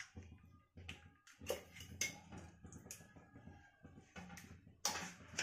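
Faint, scattered clicks and taps of a spoon and hand working a mixture of curd, grated fresh coconut and roasted rava in a pan.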